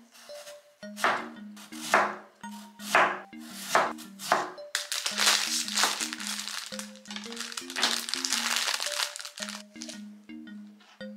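Kitchen knife slicing through daikon radish onto a plastic cutting board, five sharp cuts about a second apart. Then several seconds of plastic packaging crinkling as a wrapped pack of enoki mushrooms is cut open and handled.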